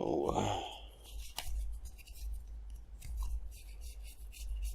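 Trading cards being flipped and slid against one another in the hands, a run of light scraping ticks.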